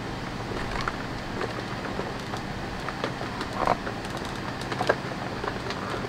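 Plastic clicks and light knocks from a Sebo Evolution 350 upright vacuum's body being worked loose from its floor head, irregular and a few per second at most, the loudest a little past halfway. The steady hum of a running air conditioner and floor fan lies underneath.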